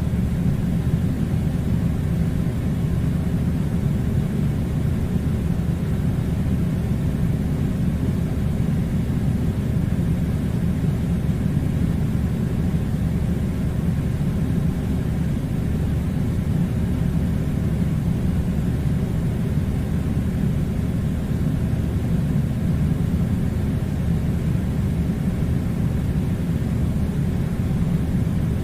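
Air conditioner running with a steady, deep noise that stays even throughout.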